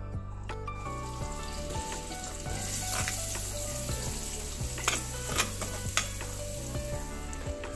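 Sliced onions sizzling in hot oil as they are tipped into a large aluminium pot, the frying hiss building just under a second in. A few sharp clicks come about five to six seconds in, over soft background music.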